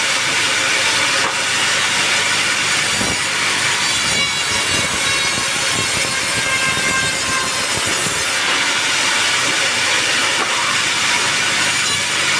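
Sawmill band saw cutting through a teak log: a steady, loud hiss of the blade in the wood with a thin whine that shifts in pitch, running without a break.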